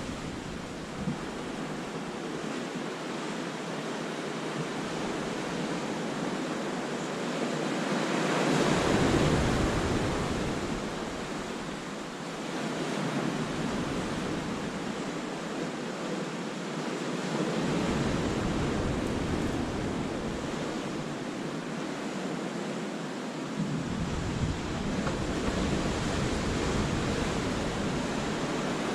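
Sea waves breaking and washing over rocks in a cove. The surf swells and ebbs, loudest about nine seconds in, with further surges later on.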